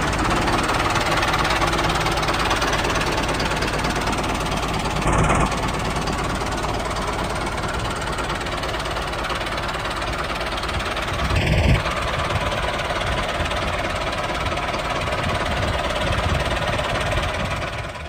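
Tractor engine running steadily with a fast, even chugging, briefly louder twice.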